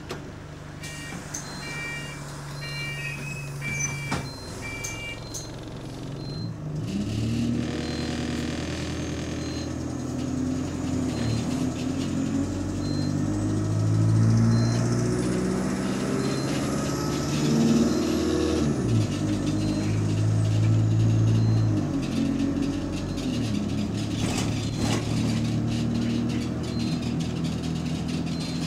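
Diesel engine of a double-decker bus, heard from inside on the upper deck: running steadily with a few short electronic beeps and a regular light tick, then pulling away. Its note climbs and drops back several times as it changes up through the gears, with a faint high whine rising and falling under it.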